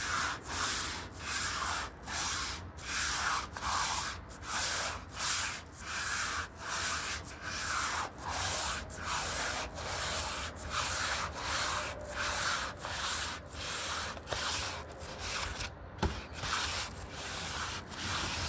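Sandpaper rubbed by hand back and forth over the white primer on a guitar body, smoothing it down: an even run of hissing strokes, a little more than one a second, with a short break near the end.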